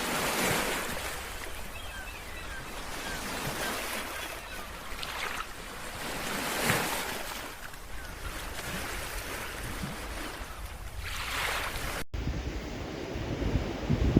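Sea waves washing onto the shore, swelling and breaking about every five seconds, with wind on the microphone. Near the end the sound cuts abruptly to a duller, low wind rumble.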